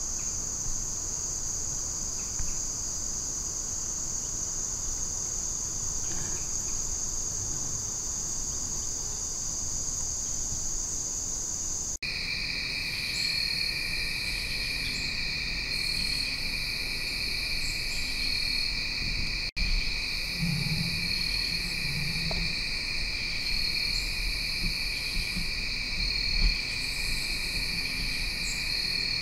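Evening chorus of crickets and other insects trilling steadily. About twelve seconds in the chorus changes abruptly to a lower-pitched mix, with a short high chirp repeating about every second and a half.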